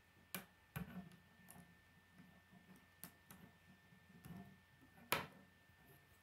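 Plastic K'nex rods and connectors clicking and snapping together as they are fitted by hand, in scattered faint clicks, with a sharper knock about five seconds in.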